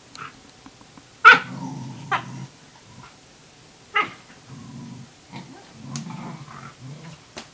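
A Tamaskan puppy and a Norwegian Elkhound squabbling at a food bowl: several sharp yaps, the loudest about a second in, with low growling between them, as the puppy challenges the elkhound over its food.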